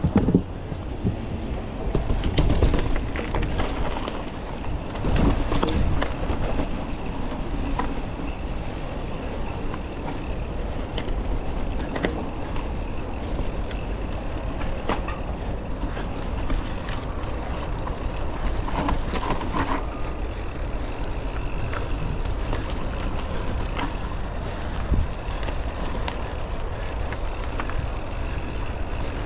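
Mountain bike riding down a rocky trail: a steady rumble of tyres and wind on the microphone, with frequent knocks and rattles as the bike goes over the rocks.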